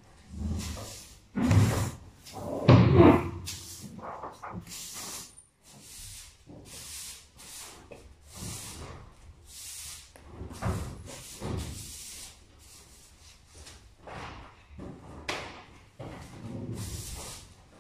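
Straw broom sweeping the floor in short, repeated strokes, with a few louder thuds and knocks in the first few seconds.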